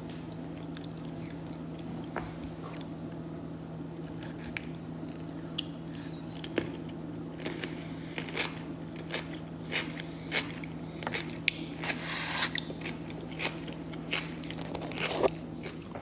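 Close-miked eating: chewing with small crunches and wet mouth clicks, scattered irregularly, over a steady low hum.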